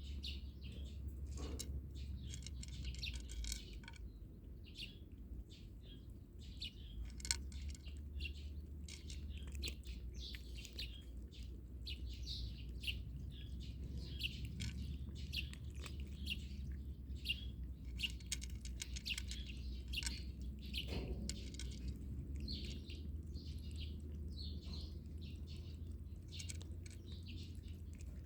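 Small birds chirping and twittering continuously, many short calls in quick succession, over a steady low hum.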